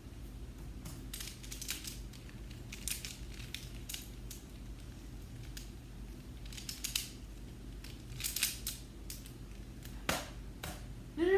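A Rubik's cube being turned fast during a speed solve: plastic layers clacking in quick clusters of clicks, with short pauses between.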